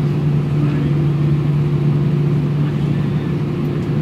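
Cabin noise inside an Airbus A320 taxiing after landing: the jet engines and airflow make a steady low hum with a constant drone.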